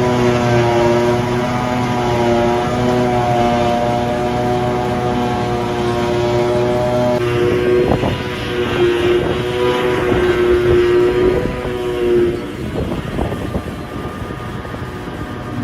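Heavy diesel farm machinery at work in grass silage harvesting, a forage harvester and tractors, running with a steady engine drone. The tone shifts about halfway through, and rougher, rattling sound follows.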